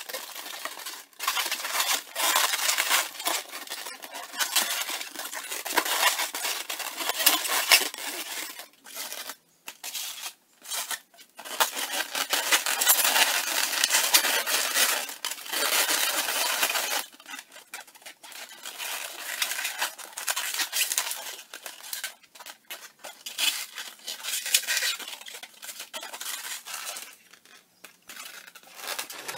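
Inflated 260Q latex modelling balloons rubbing against each other and against hands as the figure's parts are twisted and pressed into place, a scratchy rubbing in long stretches broken by brief pauses, quieter in the second half.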